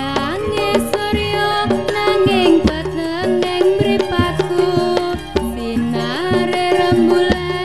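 Traditional-style music: a sliding, ornamented melody line over a steady hand-drum rhythm.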